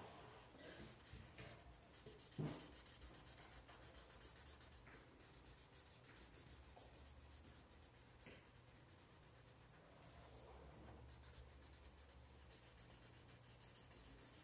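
Felt-tip marker scratching on paper in quick, faint back-and-forth colouring strokes. A short knock about two and a half seconds in.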